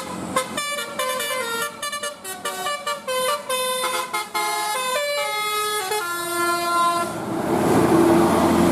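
Bus telolet horn, a Basuri multi-tone air horn, playing a quick tune of stepped notes for about seven seconds. Near the end a louder, steady rushing noise with a low hum takes over.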